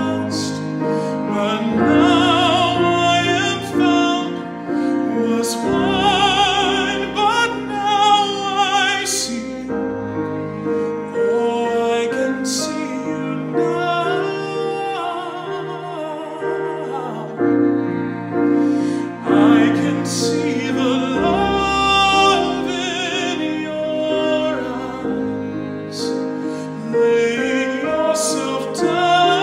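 A man singing with vibrato, accompanied by a Roland digital piano and a bowed cello.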